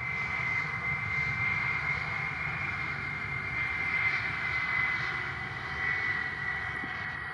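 Boeing 737-800's CFM56 turbofan engines at taxi power: a steady high whine over a low rumble, the whine sinking slightly in pitch.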